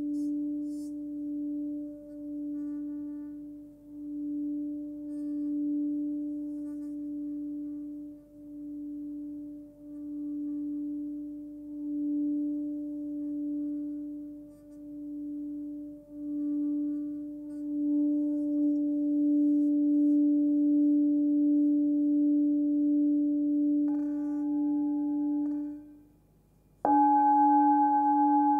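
Hand-forged singing bowl with its main tone near 291 Hz (D), sung by circling its rim with a covered wooden mallet. It gives a steady hum that swells and fades about every two seconds, then grows louder and steadier as a higher overtone joins in. Near the end the sound is stopped; the bowl is then struck once and rings on with a fuller set of higher overtones.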